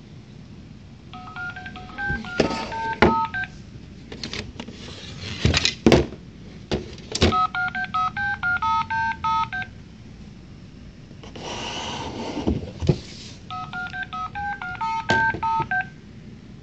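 Electronic sound unit of an Operation board game playing a short beeping tune three times, with a hissing burst of noise between the second and third. Knocks and clatter of the plastic game tray and box being handled come in between.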